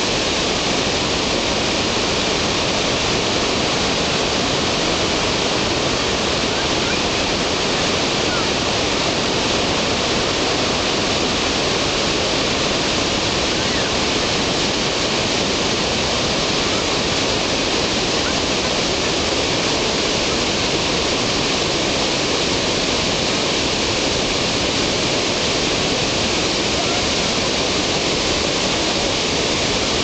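The Rhine Falls' whitewater rushing over the rocks in a loud, steady, unbroken wash of water noise.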